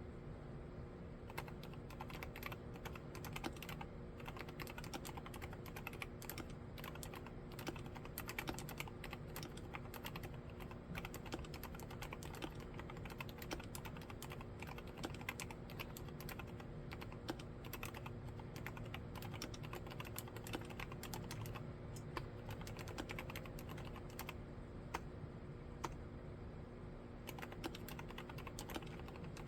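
Typing on an Akko MOD007 75% mechanical keyboard fitted with mStone silent milky switches: a quick, irregular run of soft, dampened keystrokes starting about a second in, with a couple of brief lulls.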